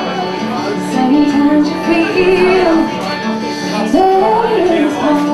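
Acoustic guitar fingerpicked in a repeating pattern, with a woman's singing voice coming in over it about a second in and rising again near four seconds.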